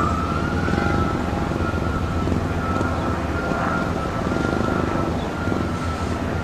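Steady low rumble of a vehicle, with a thin high tone held over it that rises slightly about a second in.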